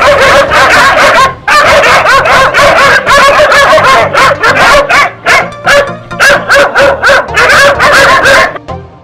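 Dog barking and yipping in rapid, almost continuous runs of short high calls, with a brief break about a second and a half in, ending shortly before the close, over background music.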